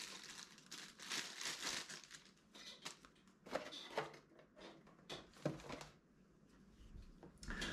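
Faint plastic bag wrapping crinkling and rustling in short, irregular handfuls as a cordless impact driver is unwrapped, with light handling of its cardboard box.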